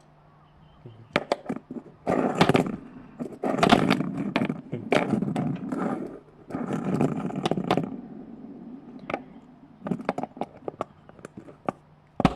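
Hard small parts being handled, scraping in repeated bursts of about half a second to a second, with sharp clicks between them.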